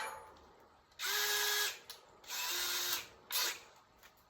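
Electric drill running in two short bursts of under a second each with a steady whine, the second a little lower in pitch, then a brief third burst, while a flue collar is fitted over pilot holes in a barrel stove's sheet-metal top.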